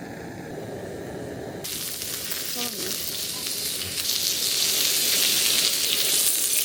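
Pork jowl sizzling on a hot SOTO stone griddle plate. The sizzle starts suddenly about two seconds in and grows louder as the fat spits.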